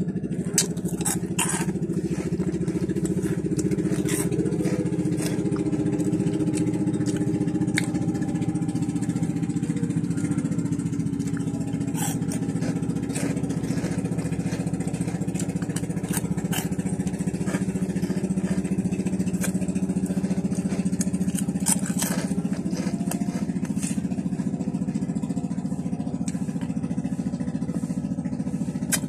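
An engine idling steadily, with a few sharp clicks and crunches from puffed snacks being chewed and picked from the bag.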